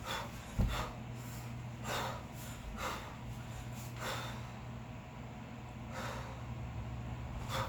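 Sharp, forceful breaths, about one a second, of a kettlebell lifter working through a long cycle set with two 16 kg kettlebells, with one low thump about half a second in.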